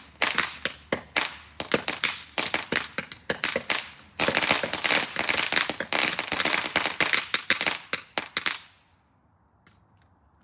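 A firework going off inside a plastic toy washing machine: rapid, irregular sharp pops and cracks, then about four seconds in a dense, continuous crackling hiss that cuts off abruptly a little before the end, leaving a couple of faint snaps.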